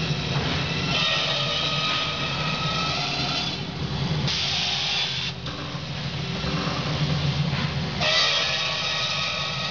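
Automatic-feed aluminium circular saw machine with a 370 mm HSS blade running with a steady low motor hum. Stretches of high metallic ringing and scraping come about a second in and again near the end, and a short hiss comes about halfway.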